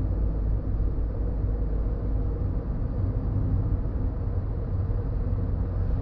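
Steady low rumble of a car travelling along a road, the road and engine noise heard from inside the car.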